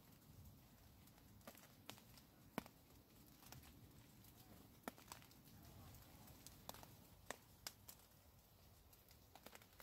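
Near silence in wet woodland, broken by faint, irregular sharp ticks of water dripping after rain, the clearest two about two and a half and five seconds in.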